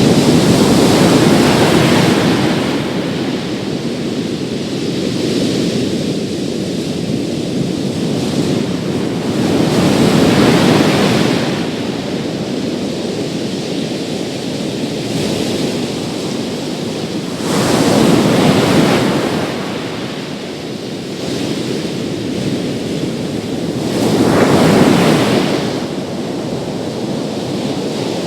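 Big sea waves breaking on a beach, a continuous surf wash with a louder breaker crashing and fading away every six to eight seconds, four times in all.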